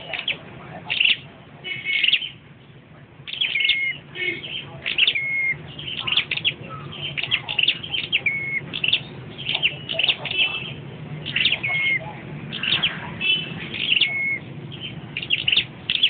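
Caged songbird singing in short, loud, chirpy phrases repeated every second or so, many of them dropping to a short, lower held whistle, over a low background murmur.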